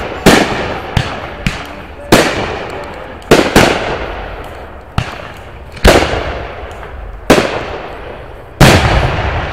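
Aerial firework shells bursting: six loud booms about every second and a half, each trailing off in a long rumbling echo, with a few smaller cracks in between.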